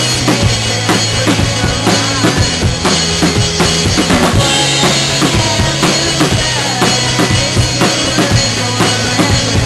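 Acoustic drum kit played live along to an alternative rock song: steady snare and bass drum hits with cymbals, over the song's sustained backing.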